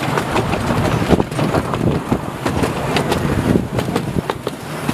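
Miniature steam railway train, a small locomotive and its open passenger coaches, passing close by, with irregular clicks and rattles from the wheels on the track.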